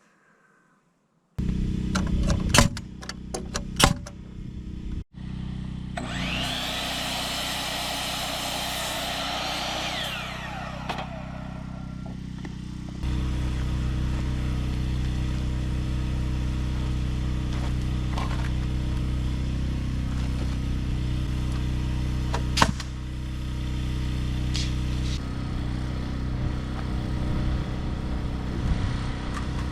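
Engine-driven sawmill running steadily, with a high whine of the blade cutting through a log for a few seconds in the middle.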